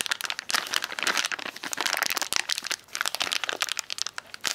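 Clear plastic parts bag crinkling and crackling as hands grip and pull at it to get the sealed bag open.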